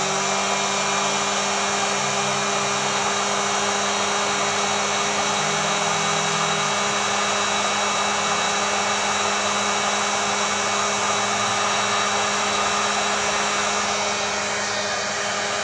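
Heat gun blowing hot air onto a solder splice heat shrink sleeve, melting its low-temperature solder into the wire joint. A steady motor hum under rushing air.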